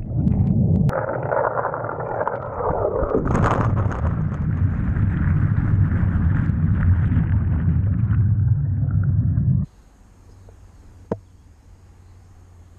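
Hot tub jet churning water right against the microphone: a loud, low, rumbling wash of bubbles. It cuts off abruptly about ten seconds in, leaving only faint background hiss.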